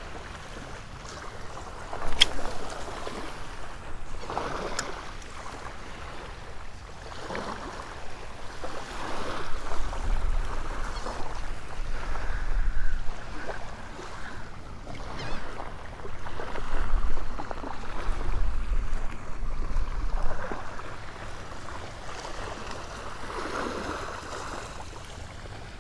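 Small waves lapping and washing on a shell-and-sand shoreline, with wind buffeting the microphone in gusts through the middle. A couple of sharp clicks near the start.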